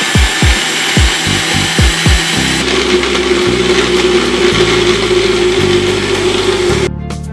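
Countertop blender running, grinding peeled garlic and ginger into paste, then switching off shortly before the end. A steady beat of background music plays underneath.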